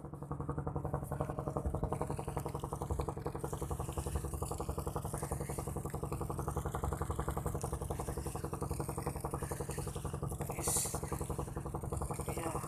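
Boat's lighting generator engine below deck running steadily, heard close to its exhaust stack, with a short hiss near the end.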